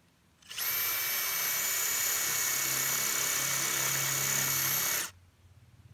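Makita cordless hammer drill with its hammer action off, running in plain rotary mode as a masonry bit bores into concrete. A steady high motor whine starts sharply about half a second in and cuts off sharply near the end.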